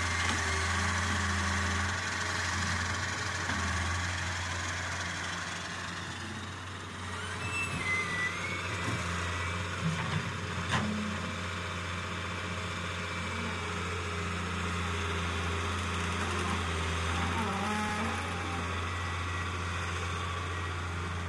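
Diesel engine of a Fiat-Hitachi wheeled excavator running steadily as it digs and loads soil, with a few short knocks about halfway through.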